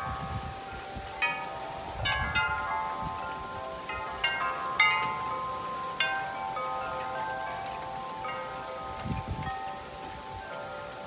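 Metal tube wind chimes swinging in gusty storm wind, the striker hitting the tubes in clusters every second or so so that several ringing tones overlap, over a steady hiss of rain.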